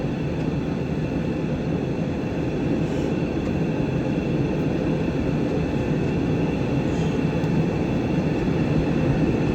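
Steady, even rumble of an airliner's engines and rushing air, heard from inside the aircraft's cramped lavatory.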